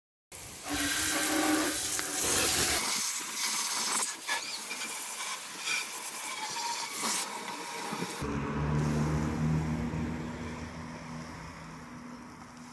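Garden hose spray nozzle jetting water into the inside of a motorcycle fuel tank, a loud steady hiss of spray. After about eight seconds the hiss gives way to a quieter low hum.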